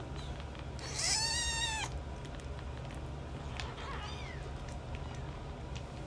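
Young kitten mewing: one loud, drawn-out cry that rises and falls about a second in, then a faint short mew about four seconds in, over a steady low hum.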